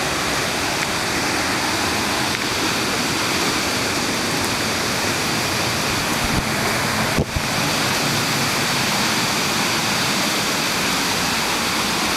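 Steady rush of whitewater from the creek's rapids and falls. A brief knock from the phone being handled about seven seconds in.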